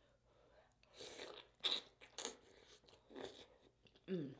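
A person eating: a few separate biting and chewing sounds, the loudest about a second and a half in, then a short hummed 'mm' near the end.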